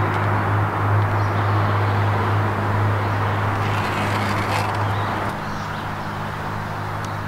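Steady outdoor background: a low hum under an even rushing noise, with a few faint high chirps about four seconds in; it drops a little in level about five seconds in.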